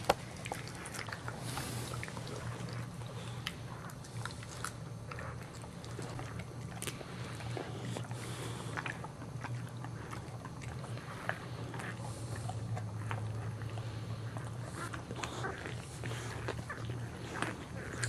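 Boxer mother dog licking and chewing at her newborn puppy to clean it, making irregular wet smacking and clicking sounds over a steady low hum.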